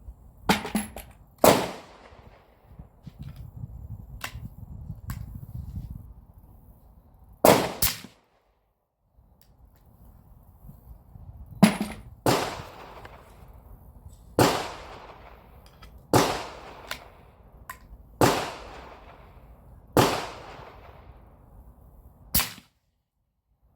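Suppressed 300 Blackout rifle shots with subsonic 200-grain ammunition through a Banish 30 suppressor: about ten sharp, muted reports, one to two seconds apart, some closely paired, each with a short decaying tail.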